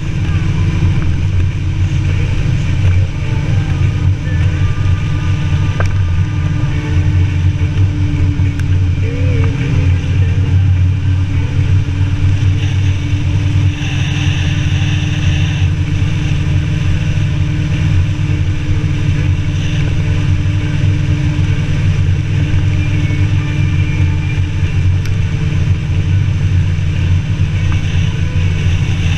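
Motorcycle with sidecar cruising at steady road speed: the engine runs evenly under a heavy, steady rush of wind on the microphone.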